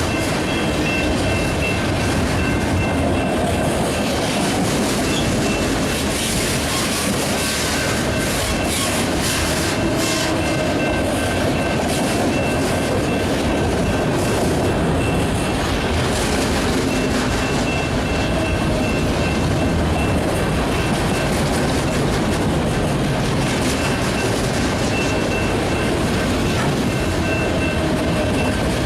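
Freight cars of a BNSF intermodal train rolling past, a steady rumble and rail clatter from the wheels. A faint, high, thin tone comes and goes over it.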